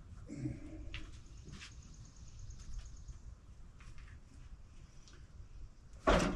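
A heavy red oak log turning over, with a few light knocks and then one loud, heavy thump near the end as it lands.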